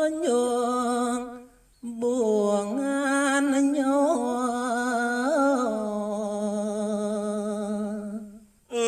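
A man singing a Balinese geguritan verse in pupuh Ginada, one voice unaccompanied: a slow phrase of long, ornamented held notes, a breath pause about a second in, then a second long phrase that climbs and wavers before settling on a long, lower held note and breaking off near the end.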